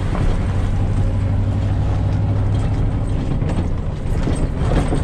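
A motor vehicle's engine running steadily, with a low hum, and rattling clicks and knocks joining in from about three seconds in.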